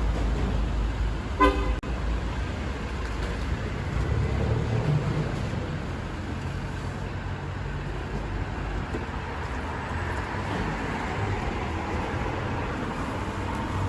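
Street traffic running steadily, with a car horn giving one short toot about a second and a half in.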